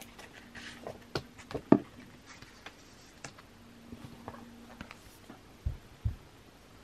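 Quiet handling noises from a boxed CD album being moved about: scattered light clicks and taps, then two soft low thumps near the end.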